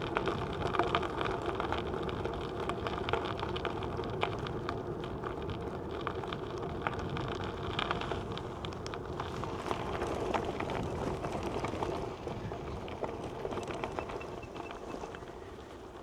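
Brompton folding bike rolling along a gravel greenway path, its small tyres crackling steadily on the gravel with many small clicks and rattles.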